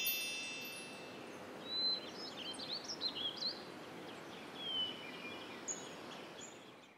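A bright chime rings out and fades over the first couple of seconds, then birds chirp several times over a soft outdoor hiss: a cartoon's background ambience.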